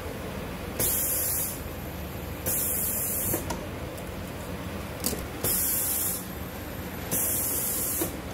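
Hinge riveting machine cycling four times, each stroke marked by a short burst of air hiss, with sharp metallic clicks between the strokes over a steady low machine hum.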